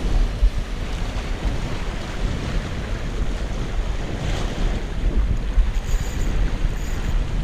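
Wind buffeting the microphone over small waves washing and breaking against shoreline rocks.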